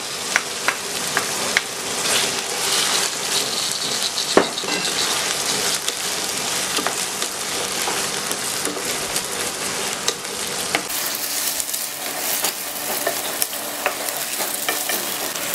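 Chicken pieces, onions and chopped tomatoes sizzling in hot oil in a wok, with a wooden spatula scraping and clicking against the pan as the mix is stirred. A sharper knock of the spatula comes about four seconds in.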